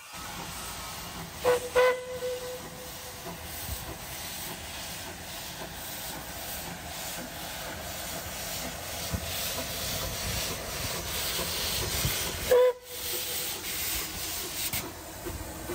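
Puffing Billy steam locomotive's whistle blowing two short blasts a couple of seconds in and one more near the end, over the steady hiss and rumble of the steam train.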